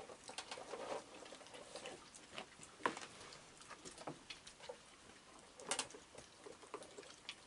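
Raccoons feeding from plastic buckets: irregular small clicks, knocks and crunches of chewing, and of teeth and claws against the plastic, with a sharper knock about three seconds in.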